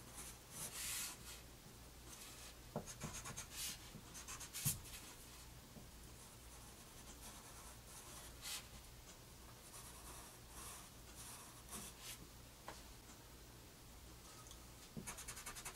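Pencil scratching on paper in short strokes, faint, coming in little clusters with pauses between them and a quick run of strokes near the end.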